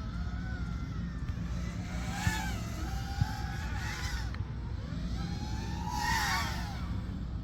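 A 5-inch FPV quadcopter's brushless motors whining, their pitch rising and falling with throttle, with two sharper bursts of throttle about two and six seconds in, over a steady low rumble.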